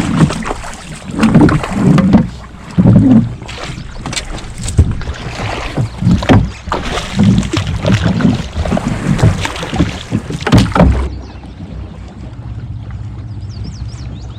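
Drift boat being rowed: irregular knocks and water noise from the oars and hull, with some wind on the microphone. About eleven seconds in it changes abruptly to a quieter steady low hum with a few faint high chirps.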